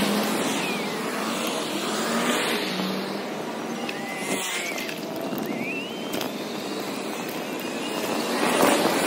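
Road traffic heard from a moving bicycle, cars and buses passing on a busy multi-lane road, in a sped-up recording that raises the pitch. A vehicle passing near the end brings a louder swell.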